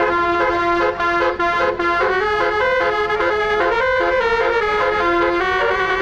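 Telolet multi-tone horn on a tour bus playing a fast melody. Several trumpet-like tones sound together and change note every fraction of a second, without a break.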